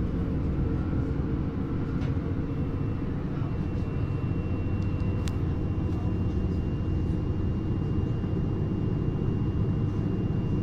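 Running noise inside a moving passenger train: a steady low rumble of wheels and drive. A faint steady high whine joins about three seconds in, and there is a single click about five seconds in.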